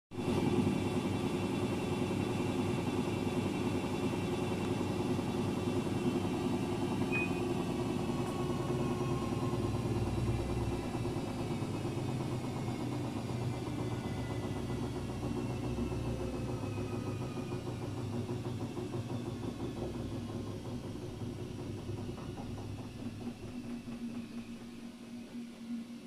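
Daewoo DWD-FT1013 front-loading washing machine spinning at 600 rpm with an unbalanced load: a steady motor hum and low rumble. Its whine falls slowly in pitch from about a third of the way in, and the sound eases off toward the end.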